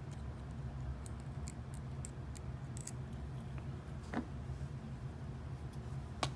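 Faint ticks and clicks of small metal lock parts being handled, with one sharper click about four seconds in and a couple more at the end, over a steady low hum.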